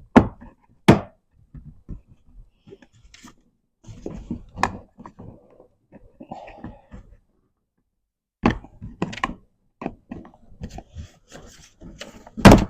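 Hard plastic door trim piece on a 2009 smart car being worked loose and handled: a string of irregular knocks, clicks and thunks, the loudest one near the end.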